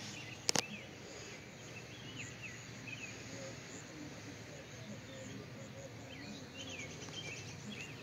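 Outdoor summer ambience: several birds chirping in short, scattered calls over a steady insect drone. A single sharp click comes about half a second in.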